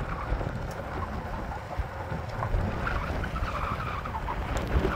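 4x4 vehicle driving down a dirt mountain road in four-wheel drive: a steady low engine and drivetrain rumble with tyre noise on loose dirt and gravel.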